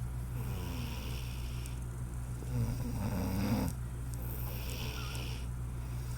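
A sleeping woman snoring: one long snore about halfway through that stops abruptly, with quieter breathing on either side.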